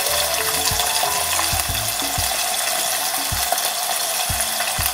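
Wagyu sirloin steak sizzling steadily under a lid in a hot Turk wrought-iron frying pan while it is slowly cooked through, with a few faint low knocks.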